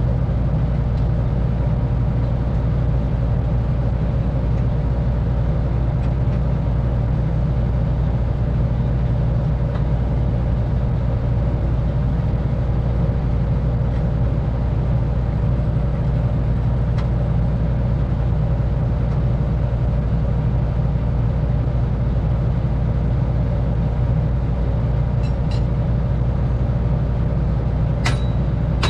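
Diesel engine of an amphibious excavator running steadily with a deep, even drone. A sharp metallic click near the end.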